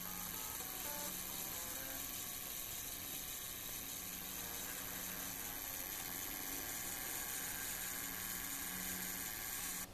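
Camera zoom motor whirring steadily as the lens zooms out, stopping abruptly near the end.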